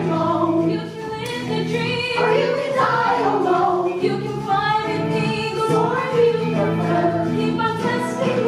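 Stage ensemble of mostly female voices singing a musical-theatre number together, with instrumental accompaniment.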